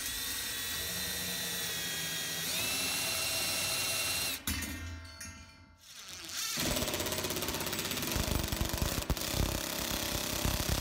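Cordless drill running with a steady whine against the steel strut at the ceiling; its pitch steps up about two and a half seconds in, and it stops after about four seconds and winds down. From about six and a half seconds a cordless impact driver hammers rapidly as it drives a lag bolt through the strut bracket into the ceiling.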